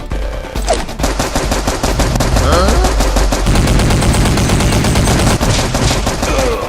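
Rapid automatic gunfire, a long run of fast shots that is loudest in the middle.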